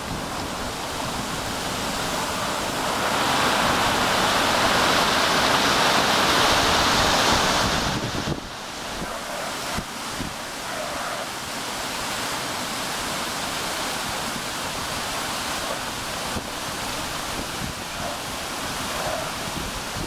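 Rain-swollen floodwater rushing in white rapids over rocks, a steady full rush of water that is loudest for a few seconds near the start, then eases slightly and holds steady.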